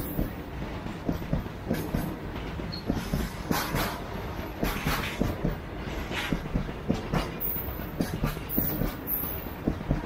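Covered goods wagons of a long freight train rolling past close by: a steady rumble with the wheels knocking and clattering in an uneven run over the rail joints.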